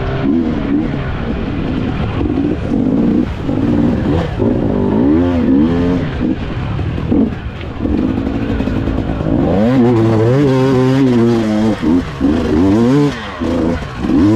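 Dirt bike engine, heard from on the bike, revving up and down as the throttle is worked through mud. The pitch rises and falls over and over, with a longer, steadier high-revving stretch about ten seconds in.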